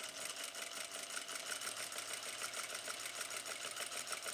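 Sewing machine running at a steady pace, stitching through fabric with a rapid, even clatter of needle strokes.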